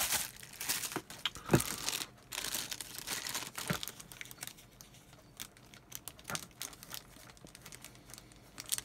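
Bubble wrap crinkling as it is pulled off a model, dense for the first couple of seconds, then the fainter crackle of a small clear plastic parts bag being handled and worked open.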